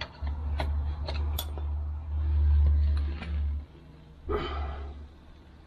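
A screwdriver tip clicking and scraping against the pitted steel wheel rim of a Unimog 404, with several sharp clicks in the first second and a half. A low rumble underneath stops about two-thirds of the way through, and a short rasp follows a little later.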